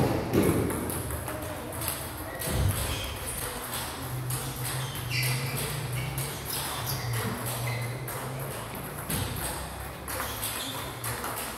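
Table tennis ball clicking against paddles and the table in a rally, with more ball clicks from neighbouring tables throughout. A steady low hum runs underneath.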